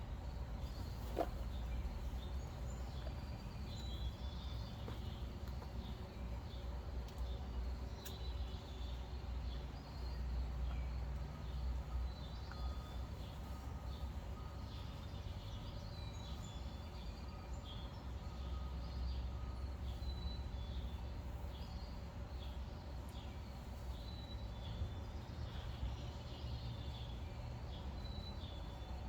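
Many small birds chirping over a steady low rumble of machinery. A faint repeating beep sounds for several seconds midway.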